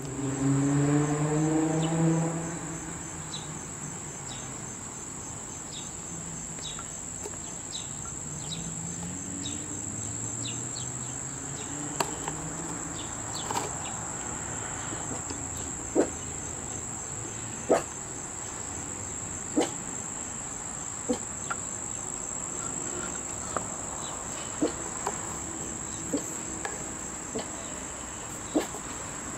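Steady, high-pitched drone of singing insects in a summer garden. A low hum is loudest in the first two seconds and comes back faintly later, and sharp clicks are scattered through the second half.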